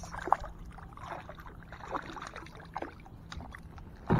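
Scattered light knocks and water splashing at a kayak as a hooked bass is played beside it, ending in one loud low thump.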